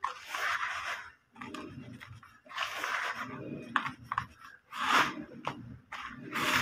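Hands scooping and raking dry, powdery crushed brick dust, letting it pour back into the tub with a soft hissing rustle and small gritty crunches. It comes in repeated bursts of about a second each.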